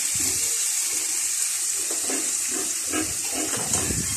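Chicken pieces sizzling steadily in a large aluminium pot over a wood fire, just added to sautéed garlic, onion and tomato.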